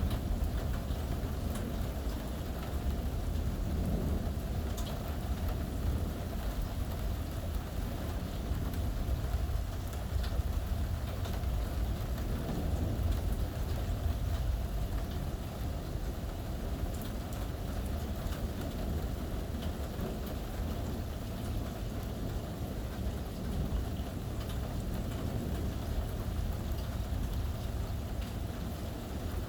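Steady thunderstorm rain falling, with scattered drop ticks over a continuous low rumble of distant thunder.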